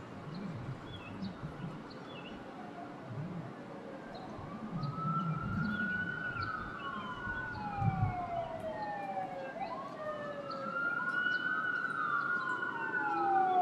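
Emergency vehicle siren wailing, its pitch rising and then sliding slowly down in two long cycles, the first starting about four seconds in and the second about nine and a half seconds in.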